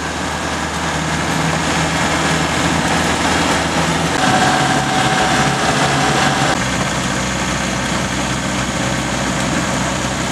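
Land Rover engine running while driving, heard from inside the cab with road noise. The engine note changes abruptly about four seconds in and again a couple of seconds later, with a thin steady whine in between.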